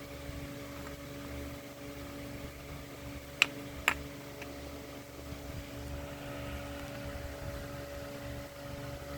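Steady mechanical hum, like a fan or motor running, with two sharp clicks about half a second apart a third of the way in.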